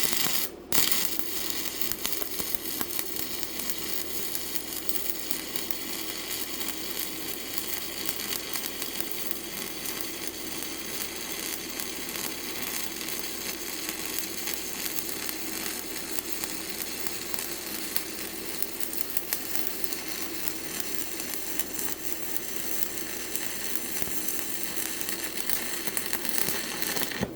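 Stick-welding (SMAW) arc from a 1/8-inch 7018 electrode on a Simder SD4050 Pro welder at about 110 amps: a steady crackling sizzle. The arc drops out briefly under a second in and re-strikes, then burns steadily and cuts off suddenly just before the end.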